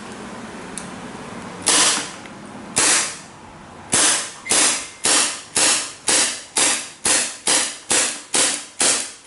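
Gunheaven M92FS gas airsoft pistol being test-fired through a magazine: two separate shots, then a steady string of about two sharp cracks a second, each with a short fading tail. It is firing and cycling normally.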